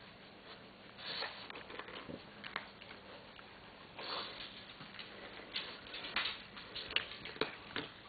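Cat chewing dry dog-food kibble, irregular crunches and clicks.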